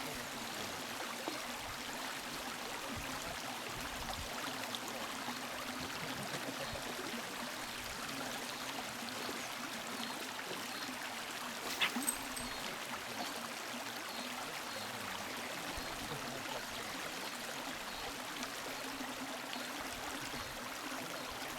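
Steady rush of flowing river water, with one brief knock about twelve seconds in.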